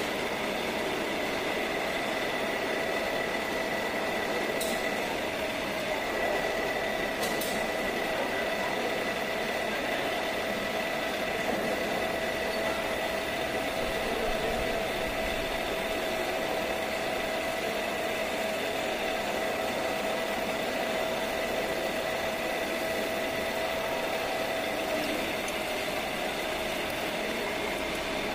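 Pillar drill running with its bit cutting into a clamped metal ring: a steady hum with a high whine over it, and two brief clicks a few seconds in.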